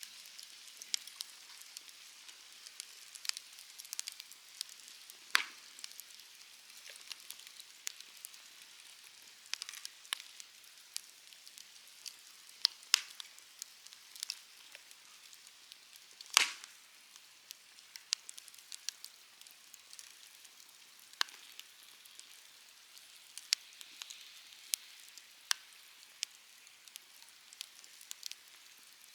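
Wood campfire burning, with a soft steady hiss and irregular crackles and pops, a few of them sharper and louder.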